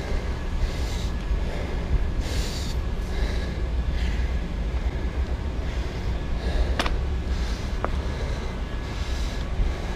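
Steady low wind rumble on the microphone and tyre hiss from a bicycle riding along, with a couple of sharp clicks about two-thirds of the way through.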